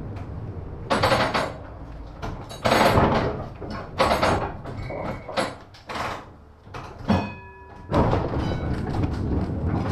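1915 Ringhoffer tramcar heard from on board: a series of loud knocks and clanks, then a brief ringing tone about seven seconds in. From about eight seconds the tram is moving, with a steady running rumble.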